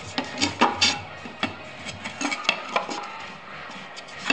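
Wooden lid of a dovetailed walnut box being fitted by hand, knocking and scraping against the box's rim in a series of short clicks and taps.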